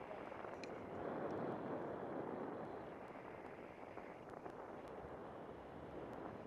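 Wind rushing over a selfie-stick action camera's microphone in paraglider flight, a steady noise that swells about a second in and eases again, with a few faint ticks.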